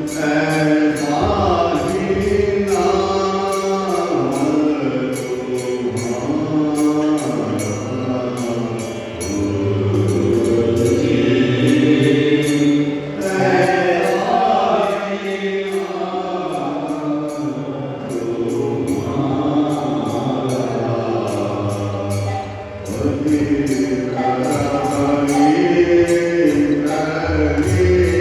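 A man singing a Hindu devotional bhajan in a slow, chant-like melody, accompanied by sustained chords on a Pakrashi harmonium.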